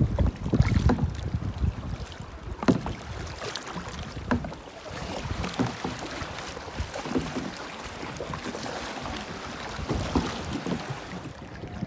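Seawater splashing and lapping around a sit-on-top kayak, with small waves washing over rocks and scattered sharp splashes. Wind buffets the microphone in the first second or so.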